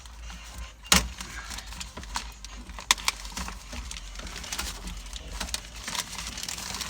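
Scattered clicks and light rattles of hands working plastic trim and lock parts inside a car door. A sharp click comes about a second in, and another near three seconds.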